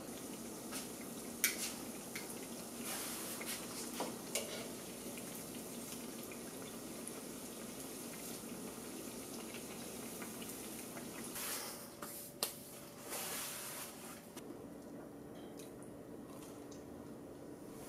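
Cider doughnuts deep-frying in hot oil, a steady sizzling and crackling, with a few sharp clicks of metal tongs. Near the end the sizzling stops, leaving quieter room tone with a faint steady hum.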